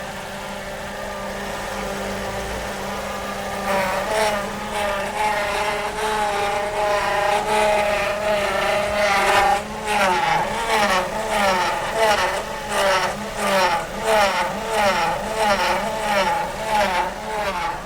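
Hydraulic power steering pump humming loudly as the steering wheel is turned, the hum wavering in pitch from about four seconds in and then swelling and fading in quick repeated pulses, about one and a half a second. The hum is caused by air in the power steering fluid.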